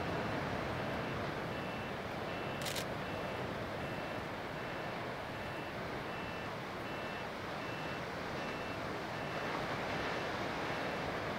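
Distant three-car KiHa 40 series diesel railcar train approaching from a tunnel: a steady, even rumble and rush that grows slightly stronger near the end. A single sharp click sounds a few seconds in.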